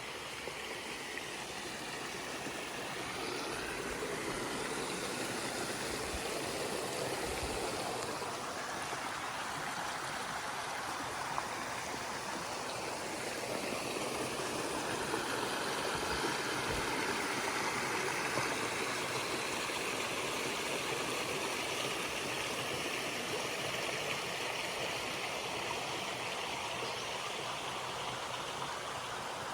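Creek water rushing steadily over rocks, an even, continuous rush.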